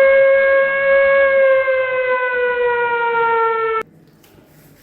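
A loud sustained tone with a rich set of overtones, its pitch sinking slowly, lasting nearly four seconds before cutting off abruptly.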